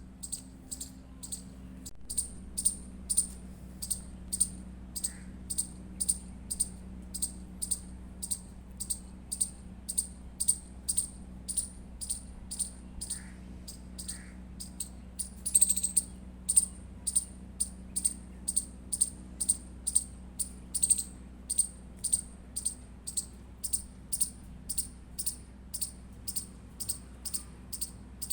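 Indian palm squirrel chirping: a sharp, high-pitched chip repeated steadily about twice a second, with one louder, harsher call a little past halfway.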